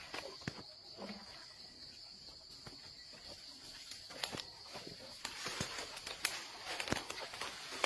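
Steady high-pitched insect chorus, with scattered snaps and crackles of twigs and dry leaf litter being trodden on, busier in the second half.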